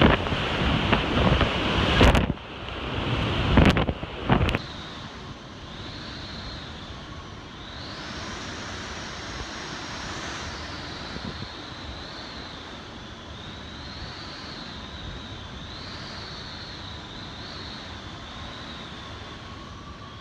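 Hurricane wind rushing on the microphone for about two seconds, then a few sharp knocks. After that comes a high wavering whistle that rises and falls over a low rush: storm wind whistling through the gaps of closed elevator doors.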